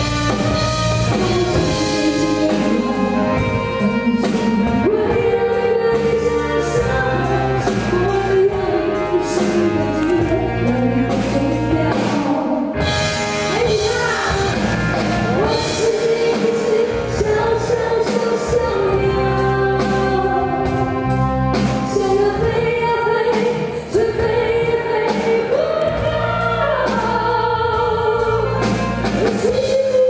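A woman singing a Mandarin pop song live into a microphone, backed by a band with drum kit; the drums keep a steady beat under her melody.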